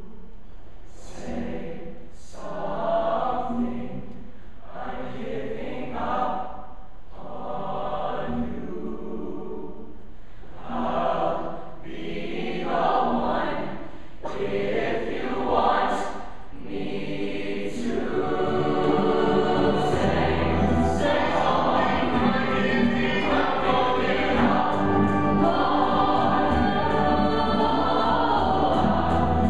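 Mixed show choir singing with live band backing. At first it sings short, separate phrases with gaps between them; from about 18 seconds in the full choir sings on, louder and without breaks, over a steady bass line, with a ticking beat near the end.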